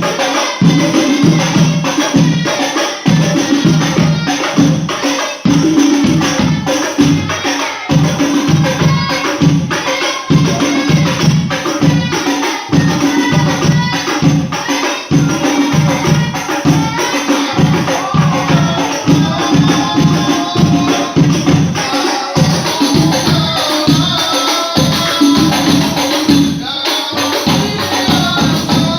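Sholawat devotional singing accompanied by frame drums and jingling tambourines playing a fast, steady beat.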